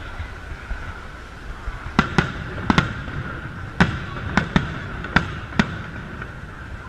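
Aerial firework shells bursting overhead: about nine sharp bangs, several in quick pairs, between about two and six seconds in, over a steady background noise.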